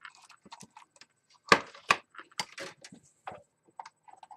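Scattered light clicks and knocks of cables and hardware being handled, with two sharper knocks about a second and a half in.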